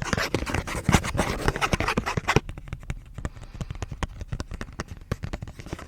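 Close-miked ASMR handling of a fake Pokémon card: dense crackly scratching and clicking for about two and a half seconds, then lighter, sparser taps and clicks.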